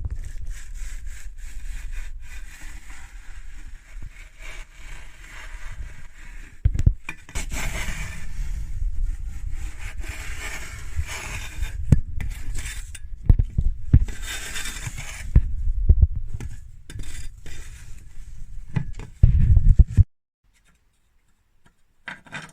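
Continuous rough scraping and rubbing inside a narrow metal stove flue pipe as ash and soot are worked loose, with a low rumble and scattered knocks. It stops abruptly near the end.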